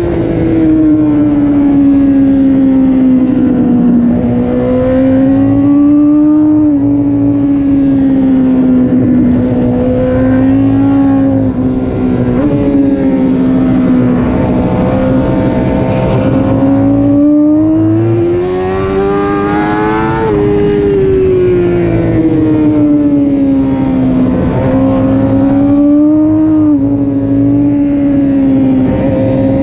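BMW S1000RR inline-four engine at racing speed, heard on board: its pitch repeatedly climbs and drops back as the rider accelerates, shifts and slows for corners, over a steady rush of wind.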